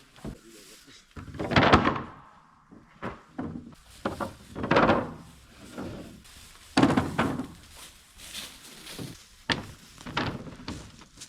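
Heavy wooden thuds and knocks, about six of them spaced a second or two apart, each with a short ringing tail, the loudest near the start and in the middle.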